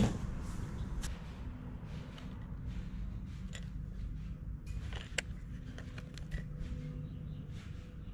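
A sharp click at the start, then a few scattered light clicks and rustles of objects being handled, over a steady low hum.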